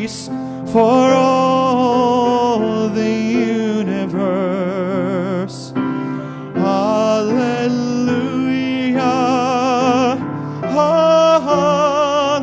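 A man singing held phrases with strong vibrato while accompanying himself on a grand piano, the voice pausing between phrases several times.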